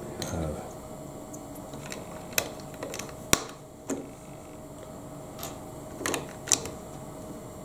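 Plastic Lego bricks clicking and snapping as they are pressed onto a model and handled: a few scattered sharp clicks, the sharpest about three and a half seconds in.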